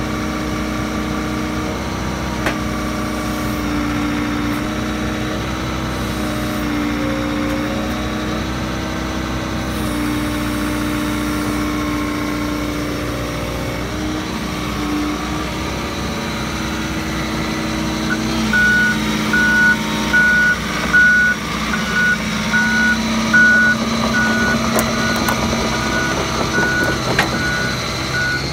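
John Deere 75D compact excavator's diesel engine running steadily. About two-thirds of the way in, a backup alarm starts beeping at an even pace, a little faster than once a second.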